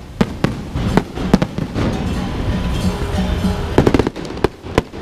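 Fireworks going off: sharp, irregular bangs and cracks, with a quick cluster of reports about four seconds in, over music.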